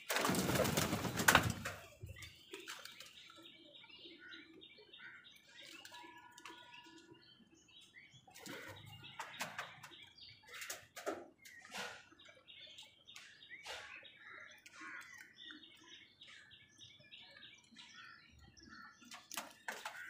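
A loud burst of flapping wings for about the first two seconds as house crows take off, then scattered sharp clicks of beaks pecking at a plastic food bowl and faint bird calls.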